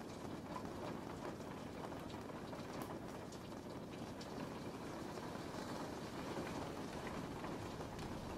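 Steady rain: an even hiss with scattered individual drops ticking.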